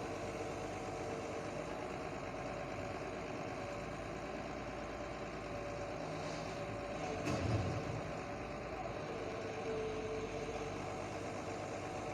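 Heavy machinery's engine running steadily, with a single thump about seven seconds in.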